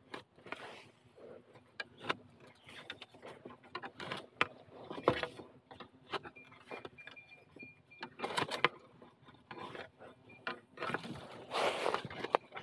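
Dry bamboo and leaf litter crackling and snapping in irregular knocks and rustles, with louder rustling bursts near the end.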